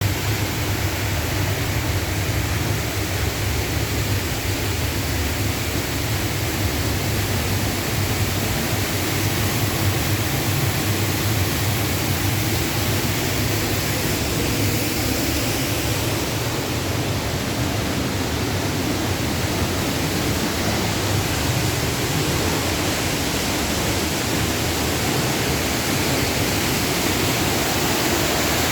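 Upper Düden waterfall: water falling and rushing in a loud, steady, unbroken noise.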